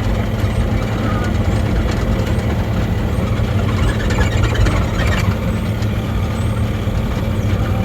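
Mini excavator's engine running steadily under way, with a few light clanks mixed in.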